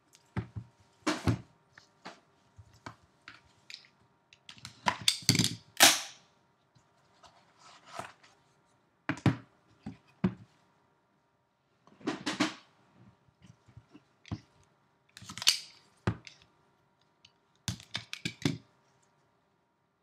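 Irregular knocks, scrapes and rustles of a Panini National Treasures trading-card box being unboxed: the cardboard sleeve slides off, the wooden case opens, and the small card boxes inside are lifted and set down. The sounds come in short clusters with quiet gaps between them.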